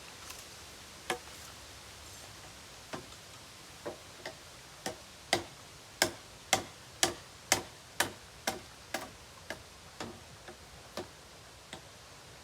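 A series of sharp knocks: a few scattered strikes, then a steady run of about two a second that is loudest midway and tapers off near the end.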